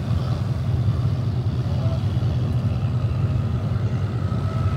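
An engine running with a steady low drone.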